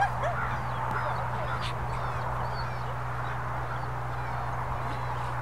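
Steady outdoor background noise with a low hum underneath and a few faint, short bird chirps scattered through it.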